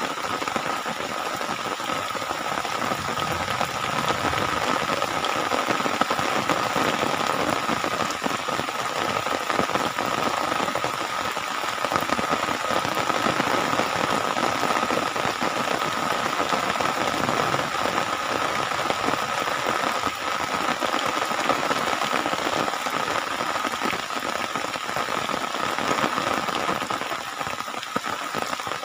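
Steady rain falling on wet ground, puddles and leaves, an even hiss with no break, and a steady high-pitched tone running through it.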